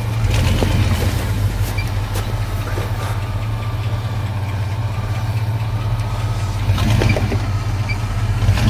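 Lifted pickup truck's engine running steadily at low revs as the truck crawls slowly over boulders, with a few faint knocks.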